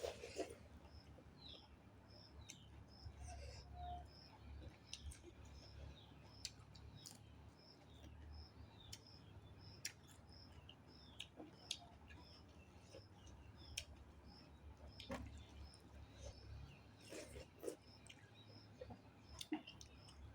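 Quiet close-up eating sounds: chewing, soft mouth sounds and small scattered clicks of hands or utensils on food. A faint high tick repeats evenly about every three quarters of a second.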